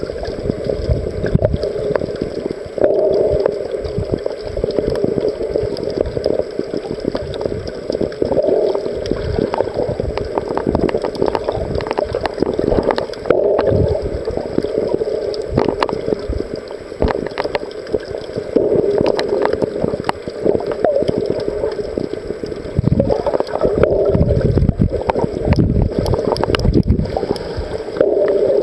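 Water sloshing and gurgling around an underwater camera, swelling about every five seconds, with many small clicks and crackles scattered throughout.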